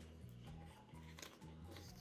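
Quiet background music with a soft, stepping bass line. A few light clicks and rubs of a plastic toy dump truck being handled sound over it.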